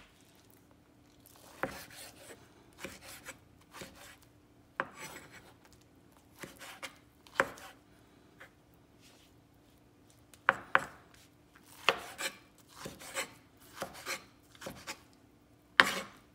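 A kitchen knife chopping boiled eggplant on a wooden cutting board: irregular knocks of the blade on the board with short pauses, coming quicker near the end.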